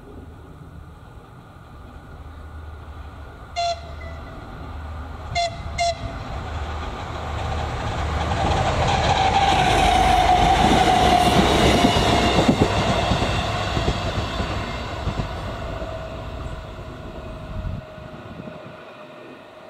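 ČD class 843 diesel railcar sounds its horn in one short blast, then two short blasts in quick succession, as it approaches a level crossing. It then runs past, loudest about ten seconds in, with wheels clicking over the rail joints and a whine that drops in pitch as it goes by, and fades away; the low rumble cuts off near the end.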